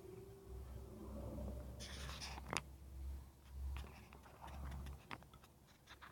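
Faint handling noise on an action camera's built-in microphone: fingers rubbing and scraping on the camera body, with a few sharp clicks and a low rumble that stops about five seconds in.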